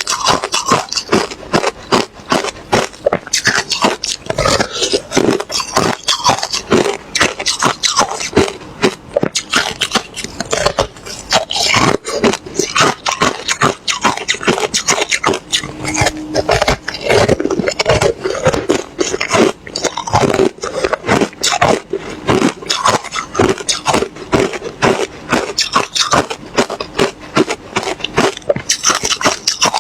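Ice being bitten and chewed close to the microphone: rapid, continuous crunching and cracking, many crunches a second.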